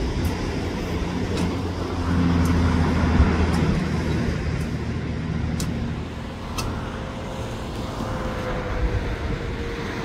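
Road traffic going by: a steady rush of tyre noise, with one vehicle's engine hum swelling about two seconds in and fading away by about six seconds.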